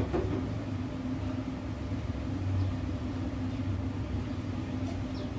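A covered pot of soup boiling on a glass-top electric hob: a steady low rumble with a faint even hum.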